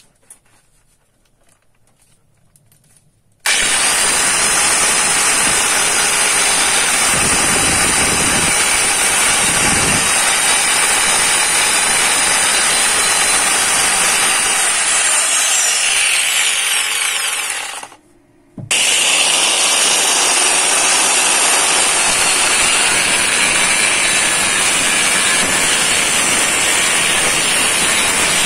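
Ryobi angle grinder, its seized bearing just replaced, starting about three seconds in and running steadily with a high whine. It drops out briefly a little past halfway, then runs steady again with its disc against the ground. A few faint handling knocks come before it starts.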